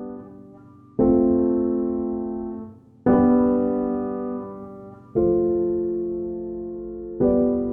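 Background piano music: slow, sustained chords struck about every two seconds, each one fading before the next.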